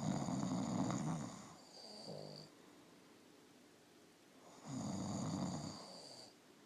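Loud snoring: two long snores about four seconds apart, each with a thin high whistle over it, the first trailing off in a shorter, lower snort.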